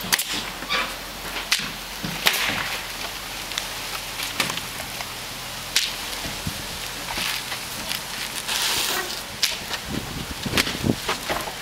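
Roofing work with asphalt shingles: irregular sharp clacks and knocks, with stretches of scraping and rustling as shingles are handled and set down.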